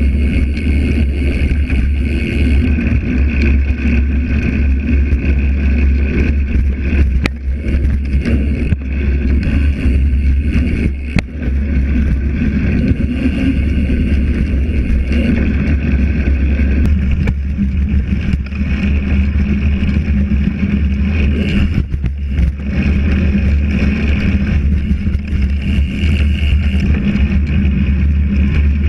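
Mountain bike rolling over a dirt trail, picked up by a camera mounted on the frame: a steady loud rumble of wind buffeting and tyre noise, with a few sharp knocks from the bike as it rides over bumps.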